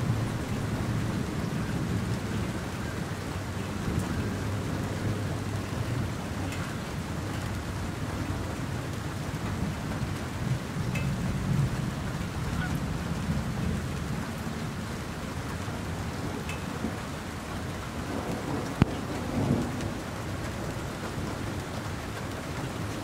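Steady rain falling on a lake's surface, with low thunder rumbling that swells and fades. A single sharp tick stands out late on.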